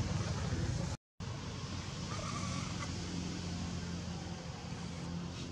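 Steady low rumble of background noise, like a distant engine, broken by a brief cut to silence about a second in.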